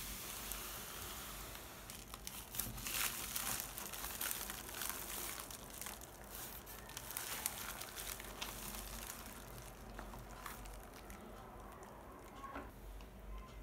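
Phone box packaging crinkling and rustling as it is handled and opened, with many small crackles and clicks that thin out and grow quieter near the end.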